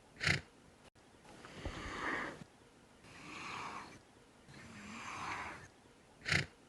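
An animal snoring: slow, breathy breaths about every second and a half, with a short sharp snort near the start and another near the end.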